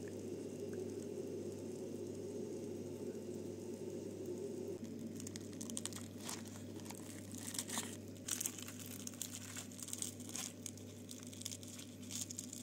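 Steady low hum, then from about five seconds in, irregular crisp crackling and tearing as crispy fried fish is broken apart by hand.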